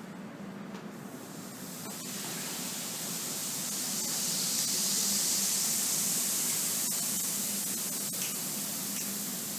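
Liquid hissing and steaming on a hot teppanyaki griddle. The hiss builds over the first couple of seconds and then holds steady, with a low steady hum underneath.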